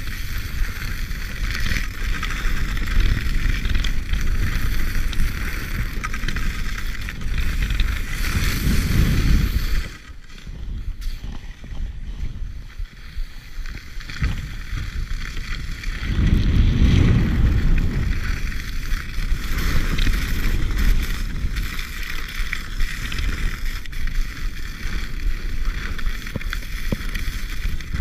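Wind rushing over an action camera's microphone and skis sliding and scraping over snow on a downhill ski run. It drops quieter for several seconds about ten seconds in, then picks up again.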